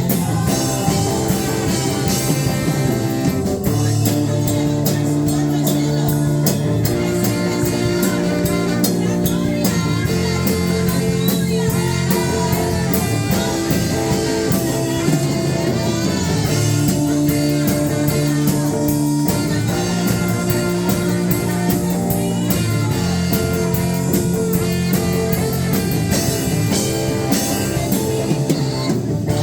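Praise-and-worship music with electric guitar and drum kit, held chords changing every few seconds over a steady beat.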